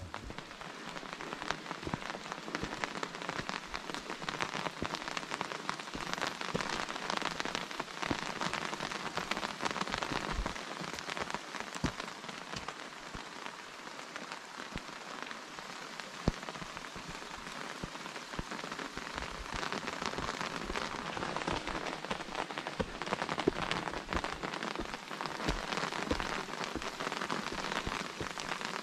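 Steady rain falling, with a dense ticking of many small drops.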